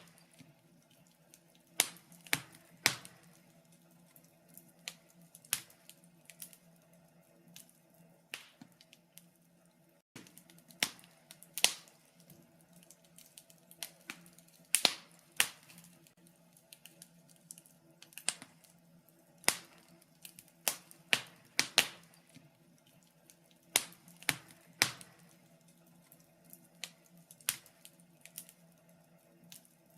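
Wood fire in a fireplace crackling, with irregular sharp pops and snaps, some loud and coming in quick pairs, over a faint steady low hum. The sound drops out for an instant about ten seconds in.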